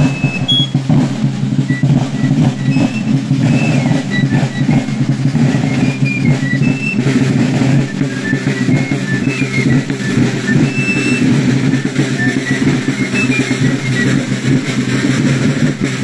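Marching field drums beating a continuous march rhythm, a dense run of rapid strokes.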